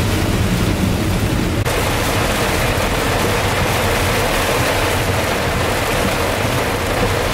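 Heavy rain on a moving car, heard from inside the cabin: a loud, steady hiss of rain over the low rumble of the road. About a second and a half in it switches abruptly to a denser, brighter hiss.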